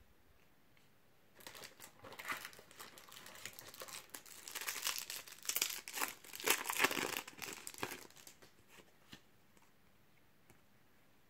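Foil wrapper of a Topps Match Attax trading-card pack crinkling and tearing as it is opened, from about a second and a half in until about eight seconds, loudest in the middle. A few faint clicks follow near the end.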